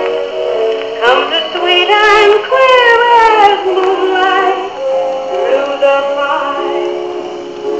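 A 78 RPM record of a singer with accompaniment playing on a Paillard Maestrophone Model 206 gramophone. The voice wavers with vibrato, and the sound is thin, with little bass or treble.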